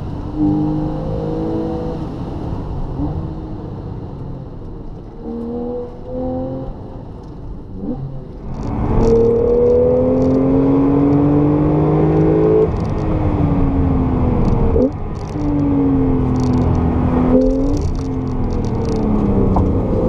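Porsche 911 flat-six engines heard from inside the cabin, accelerating through the gears. First the 991.1 Carrera's 3.8-litre naturally aspirated flat-six revs up in short rising pulls. About eight and a half seconds in, the louder 991.2 Carrera's 3.0-litre twin-turbo flat-six takes over, its pitch rising in each gear, with three upshifts a few seconds apart.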